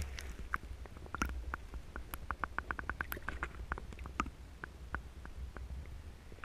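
Underwater sound picked up by a camera held beneath the surface of a stream: a steady low rumble of moving water with a run of sharp clicks and ticks, quickest about two to three seconds in and sparser after.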